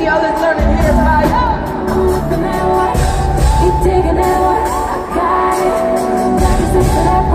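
Live hip-hop/pop concert music over an arena sound system: a sung vocal line over a heavy bass beat. The bass drops out for a moment near the start and again about five seconds in.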